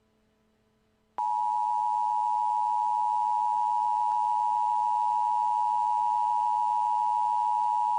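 Emergency Alert System attention signal: after about a second of near silence, a loud, steady two-tone alert tone starts abruptly and holds unchanged.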